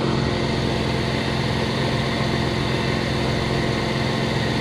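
Car engine idling steadily as it warms up after a no-start, running smoothly with an even, unchanging note.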